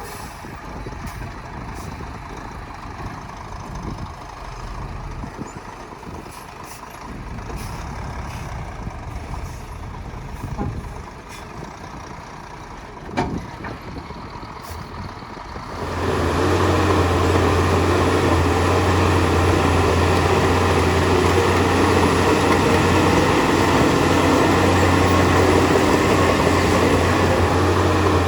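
Heavy diesel earthmoving machinery: a low engine rumble with scattered clanks and a sharp knock about 13 seconds in, then about 16 seconds in a sudden jump to a loud, steady diesel engine running close by with a deep drone.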